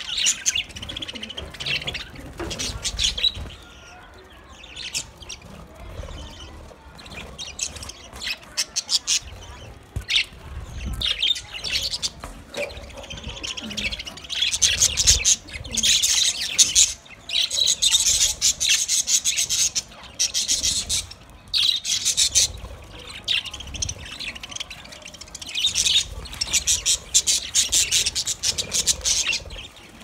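A flock of budgerigars chirping and warbling, in busy bursts of chatter with many short clicks between.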